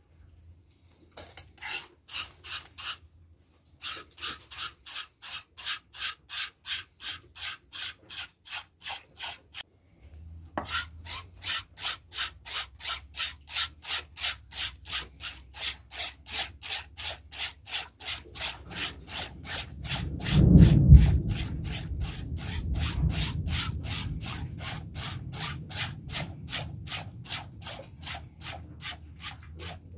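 Goat being milked by hand: short squirts of milk spraying into a stainless steel bowl, about two a second, with a couple of brief pauses. About two-thirds of the way through there is a single loud low bump.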